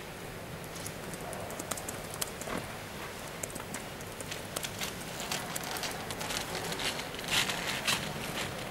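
Warm water poured in a thin stream from a stainless steel pitcher onto tea leaves in a glass bottle: light splashing with many small scattered clicks, louder near the end, over a steady background hum.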